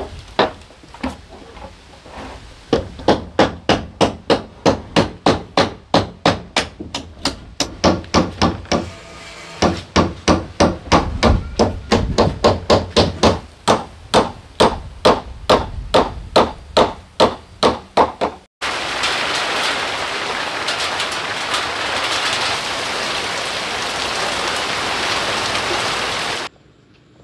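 Repeated hammer blows, about two a second, in runs with short breaks. About eighteen seconds in it cuts to a steady, even rushing hiss that stops abruptly near the end.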